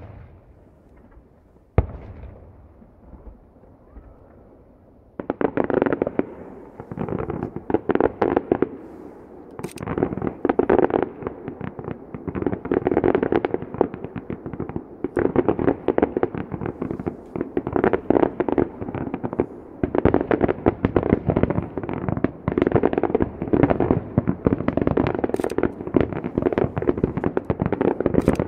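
Fireworks display heard from about a kilometre away. Two single booms come in the first two seconds. From about five seconds in, a rapid-fire barrage of shell bursts sets off a dense, continuous rattle of pops, with a few sharper cracks standing out.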